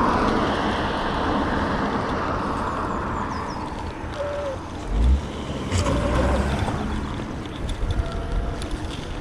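Road traffic passing, heard from a moving bicycle, with wind rumbling on the microphone; the loudest swell comes about five seconds in.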